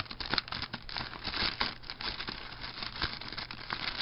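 Plastic packaging crinkling and rustling in many irregular crackles as a drawstring tripod bag is opened and the plastic-wrapped tripod inside is handled.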